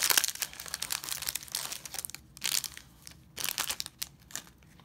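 Foil wrapper of a Pokémon Shining Fates booster pack crinkling as it is torn open by hand, in irregular crackles that are densest for the first two seconds and then come in a few short clusters.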